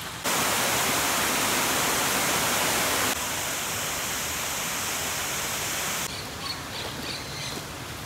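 Loud, steady rushing noise that cuts in sharply, steps down slightly partway through, then gives way about six seconds in to quieter outdoor ambience with a few short high bird chirps.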